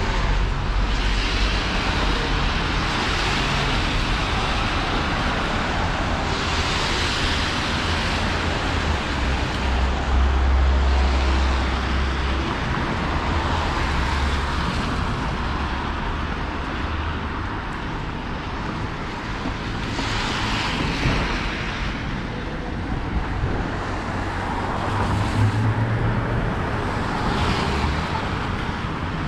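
City street traffic: cars passing one after another with engine rumble and tyre hiss, each one swelling and fading over a few seconds.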